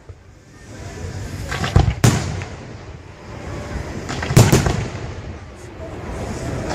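Aerial firework shells bursting overhead: loud booming reports about two seconds in and again about four and a half seconds in, with smaller bursts and a rumble between them.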